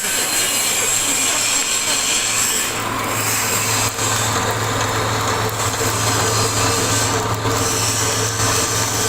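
Wood pellet mill running, a continuous grinding rasp of sawdust being pressed into pellets. A steady low hum joins about three seconds in.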